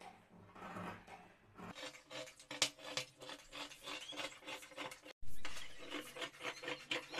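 Large tailor's shears cutting through cotton fabric folded in four layers on a wooden table. From about two seconds in, the blades make a rapid run of snips, with a brief break in the sound around five seconds in.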